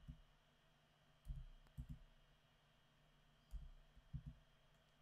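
Faint, dull keystrokes on a computer keyboard as answers are typed: one tap at the start, then two pairs of taps about half a second apart, one pair about a second and a half in and one near the end.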